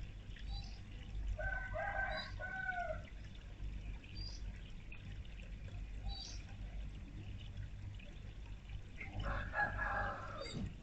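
Rooster crowing twice, each crow a drawn-out pitched call, the first about a second in and the second near the end, with short high chirps from small birds in between.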